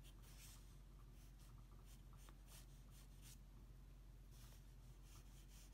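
Faint pencil strokes scratching across drawing paper, a few quick sweeps as a sketch's tail and back leg are laid in, over a low steady hum.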